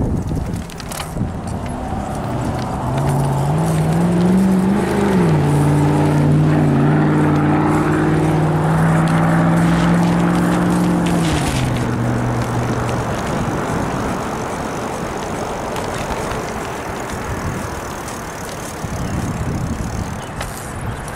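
A car driving past on the road. Its engine note climbs, dips briefly about five seconds in, holds steady, then drops and fades as it passes, around eleven to thirteen seconds in. A steady rushing noise runs underneath.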